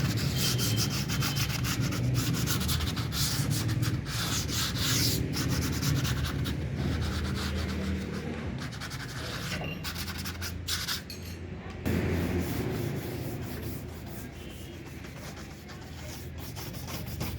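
A power tool working wood: continuous rough scraping and rubbing over a steady low motor hum, briefly dropping away about eleven seconds in.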